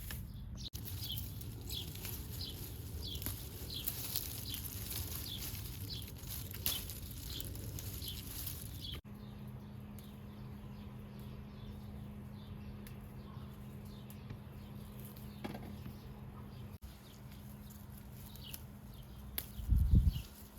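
Outdoor ambience of birds chirping: many short, quick, downward chirps repeat throughout, over a faint background hum. A loud low thump comes near the end.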